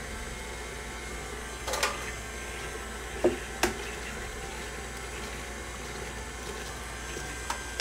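KitchenAid stand mixer running steadily, its paddle creaming shortening and sugar in the steel bowl. A few sharp knocks come through, the loudest about three seconds in.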